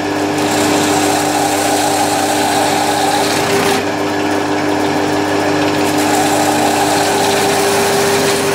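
Drill press running, its bit pecking a row of holes through a Perspex sheet to form a slot, over a steady motor hum. The cutting noise is strong for about four seconds, eases off briefly, then comes back for a second cut near the end.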